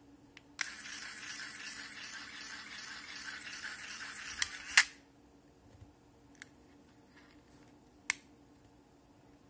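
Small electric motor of a battery-powered fishing-hook tying machine whirring steadily for about four seconds as its rotating head winds the line around the hook, starting and stopping with a sharp click. A few light plastic clicks follow as the hook and line are handled.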